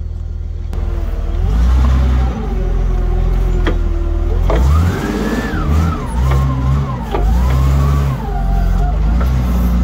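Propane-fuelled Hyster forklift running and revving as it is driven. A steady low engine drone runs under a whine that rises and falls in pitch, with a few sharp clicks.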